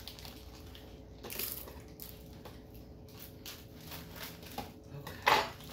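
A snack package being handled and opened: scattered crinkling and rustling of the wrapper, with one louder crackle about five seconds in.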